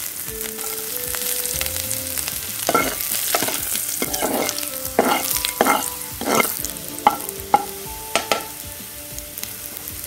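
Chopped garlic sizzling in hot oil in a coated kadhai. A steel ladle stirs and scrapes against the pan in a run of strokes from about three seconds in until about eight seconds in.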